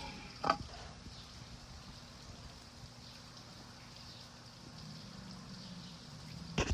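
Faint steady watery rumble and hiss of an underwater film ambience, with a brief sharp hit about half a second in and a few sharp clicks near the end.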